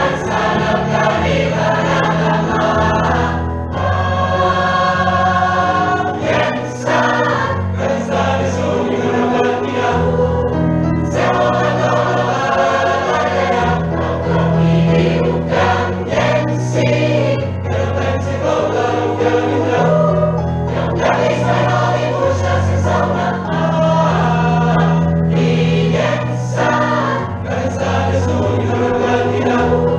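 Large mixed choir of men and women singing a pop song in harmony, accompanied by keyboard and drums, over a line of low bass notes that change every second or two.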